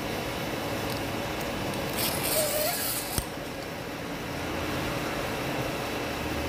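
Steady machine hum in the background, with a short hiss about two seconds in and a single sharp click just after three seconds.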